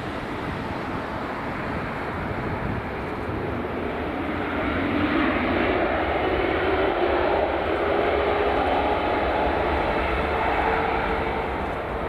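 Boeing 777 jet engines running as the airliner rolls past on the runway: a steady jet rush that grows louder midway and eases near the end, with a faint rising whine and then a steady whine tone late on.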